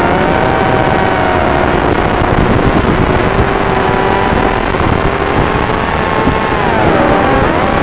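Motors of a Speck80 micro FPV quadcopter on a 1S lipo whining over a steady hiss, the pitch wandering with throttle and dipping about seven seconds in before climbing again.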